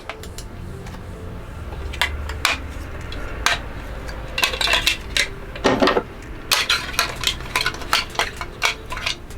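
Plastic building-block toy pieces being handled, clicking and rattling against each other in irregular taps and small clusters, recorded close up as a handmade foley effect for a touching sound.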